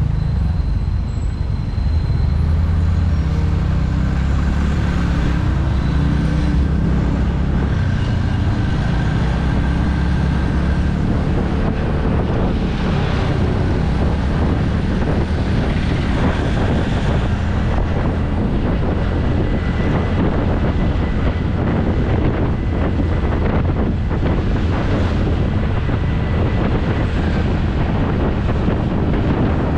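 TVS Ntorq 125 scooter's single-cylinder engine running at low speed in traffic, with other vehicles' engines close by. About ten seconds in, a steady rushing noise builds as the scooter picks up speed on a clearer road, with wind on the microphone.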